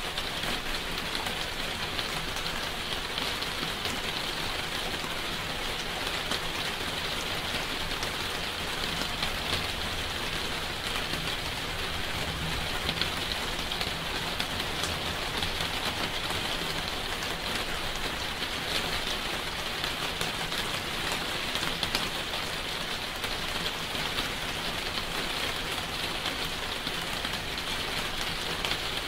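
Steady rainfall, a dense even patter of drops.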